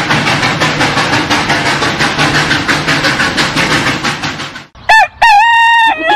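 Steam-train chugging sound effect, fast and even, that stops about four and a half seconds in. A cartoon rooster crow sound effect follows as one long held call.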